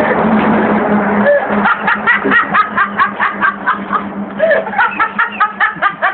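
Someone laughing hard in rapid short bursts, about five a second, in two long runs with a brief break between them. For the first second or so there is a steady rushing noise with a low hum under it.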